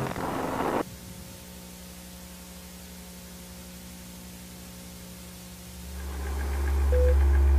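A short burst of static hiss, then a low steady electronic hum with faint held tones. About six seconds in, a deep bass drone swells up with short beeps about a second apart, leading into eerie ambient electronic music.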